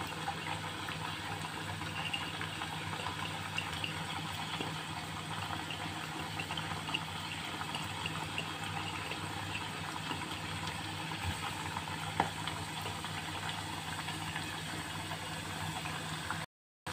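Hot oil bubbling and sizzling steadily in a saucepan as slices of flour-coated elephant yam deep-fry. A single faint knock about twelve seconds in.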